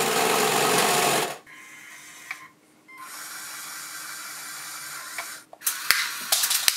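Small LEGO electric motors and gearing whirring: loud while the tank drives on its tracks, then a quieter steady hum as the rocket launcher moves and opens. Near the end come the first sharp clicks of the launcher mechanism.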